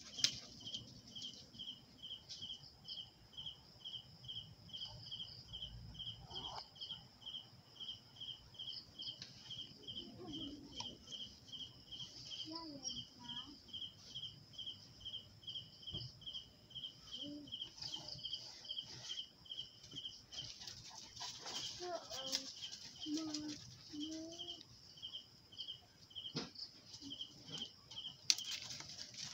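Faint high-pitched chirp repeating steadily about two to three times a second, with a few brief lower calls in between.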